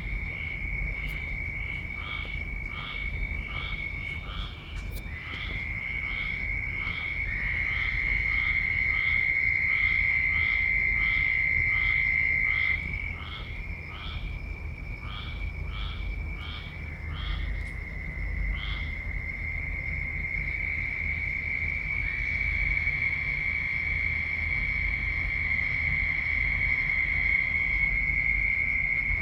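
Chorus of frogs calling loudly: several long, unbroken high trills overlap throughout. A repeated short call about one and a half times a second runs over them for the first two-thirds and then stops.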